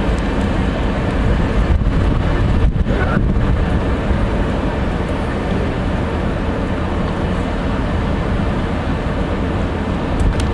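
Steady jet engine noise from Airbus A320-family airliners, one on approach and one on the runway for takeoff, a constant noise heavy in the low end.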